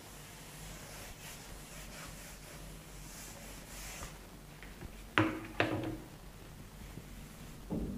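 Whiteboard duster rubbing across the board as the writing is erased, over the first four seconds. About five seconds in come two sharp knocks half a second apart, with a weaker one near the end.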